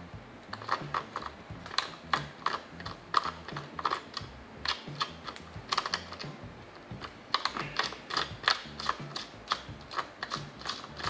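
Rapid, irregular plastic clicking from suction-cup window clamps being set and pressed down on a convertible top's rear glass.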